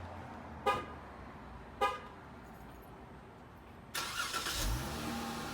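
Car horn giving two short toots as a remote starter is triggered. About four seconds in, the engine starts with a rush of noise and a low rising tone, then settles into a steady idle.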